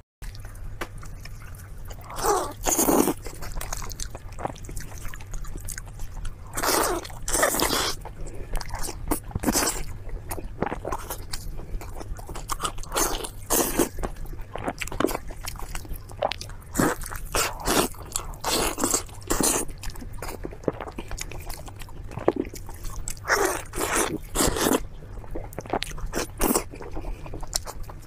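Close-miked eating: a roasted whole bird being torn apart by hand and its meat bitten and chewed, with irregular crunches and longer tearing sounds.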